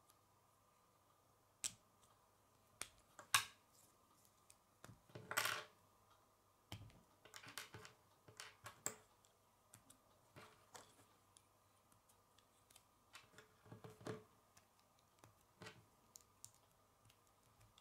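Plastic K'nex rods, clips and connectors clicking and snapping as they are handled and pushed together, with the odd tap of a piece set down on a wooden table. Scattered sharp clicks, busiest a few seconds in and again near the end.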